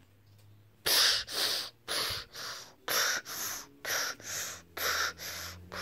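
A person's loud, gasping breaths. They come in pairs, a louder breath then a softer one, about once a second, starting about a second in.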